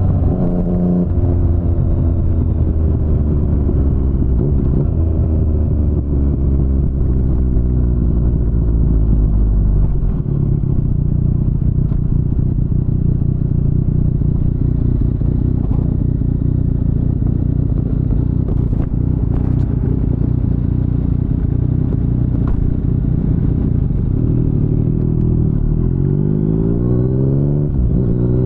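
2019 Yamaha MT-09's inline three-cylinder engine through an Akrapovic full-system exhaust. Its note falls steadily as the bike slows over the first ten seconds, then runs low and steady. Near the end it revs up, with a gear change just before the close.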